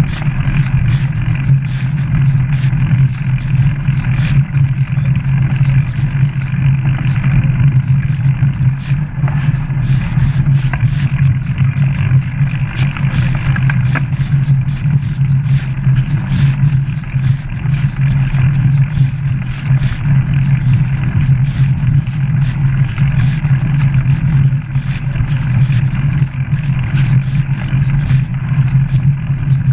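Steady low rumble of a mountain bike riding over a tarmac towpath, picked up by a camera strapped to the rider's chest, with frequent small clicks and rattles.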